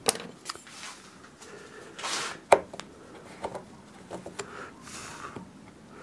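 Hand woodcarving tools clicking and knocking against wood on a workbench, with a few short scraping strokes in between; the sharpest knock comes about two and a half seconds in.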